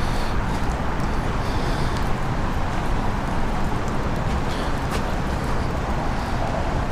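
Steady outdoor background noise: a low rumble under an even hiss, with a few faint light ticks.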